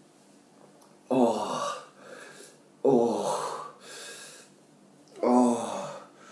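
A man groaning in pain three times, each groan starting suddenly and falling in pitch, with a harsh breathy edge. It is the distress of a stomach burning after eating a superhot Armageddon chilli.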